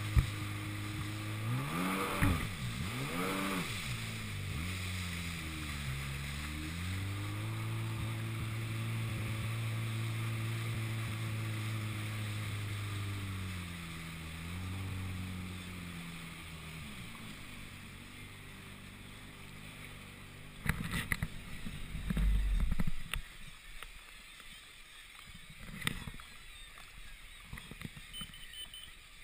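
Sea-Doo 3D DI jetski's 951cc two-stroke engine revving up and down, holding a steady speed, then slowing to a low run and dying away as the craft comes in to shore. After the engine stops there are scattered knocks and bumps, loudest a few seconds after it goes quiet.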